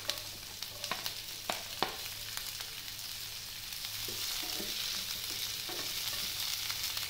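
Chopped onion, capsicum and green chillies sizzling in hot coconut oil in a pan while they are stirred, with the utensil clicking and scraping against the pan now and then. The sizzle grows a little louder after about three seconds.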